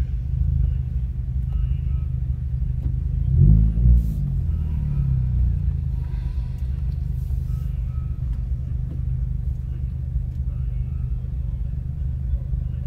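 Car engine running at low speed, heard from inside the cabin as a steady low rumble, with a short blip of revs about three and a half seconds in.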